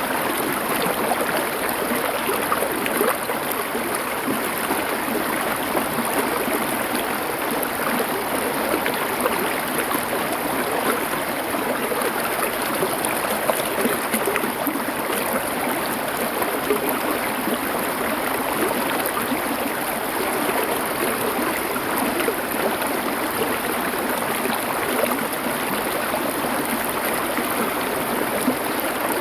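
River water flowing over stones: a steady, even rushing with fine babbling detail and no change in level.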